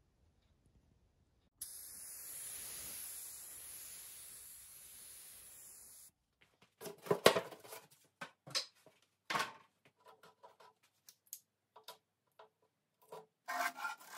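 A steady hiss for about four seconds, then blue painter's tape being peeled off the edges of a wooden cabinet: irregular crackling pulls and rustles, the sharpest a little after the middle.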